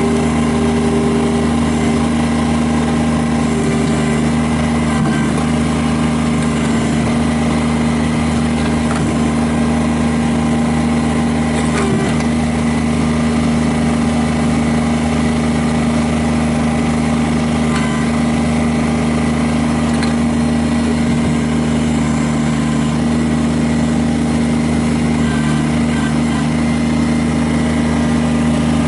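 Kubota BX23S's three-cylinder diesel engine running at a steady idle, with an even, unchanging note throughout.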